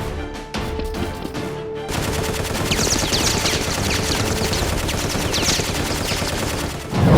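Background music, then from about two seconds in a long stretch of rapid automatic gunfire sound effects with whizzing bullet sweeps. A loud boom comes near the end.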